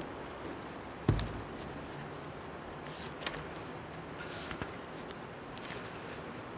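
A book handled on a wooden lectern close to the microphone: a dull thump about a second in, then a few faint clicks and page rustles over steady quiet room hiss.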